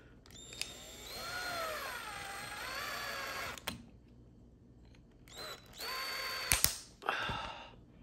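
Cordless drill spinning a wire-nut twister bit to screw a wire nut onto two wires, running about three seconds with its motor speed dipping and rising under the trigger. The drill runs again briefly twice near the end, with a few sharp clicks.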